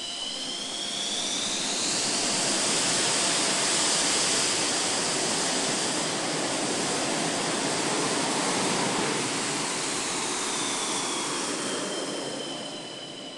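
MiG-29M OVT fighter's twin jet engines running at a flying display: a jet roar that swells over the first two seconds, holds loud with a high whine, then fades near the end as the whine drops in pitch.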